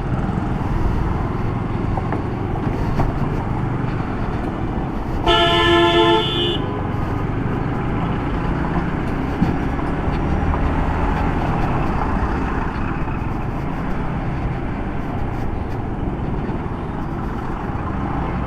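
Yamaha MT-15 motorcycle riding in heavy road traffic: steady engine and road noise, with a vehicle horn sounding once for about a second, about five seconds in.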